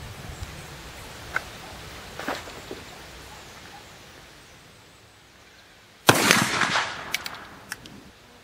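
A .44 calibre percussion double rifle fires a loud shot about six seconds in, with a tail that dies away over about a second, followed by a few sharp ticks. Two faint clicks come in the first few seconds.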